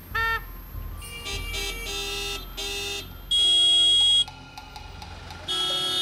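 Truck horns sounded at close range, one after another: a short honk, a run of overlapping honks, then a long, loud, shrill blast about three seconds in and another honk near the end. The horns read above 100 dB on a sound meter held beside the cab.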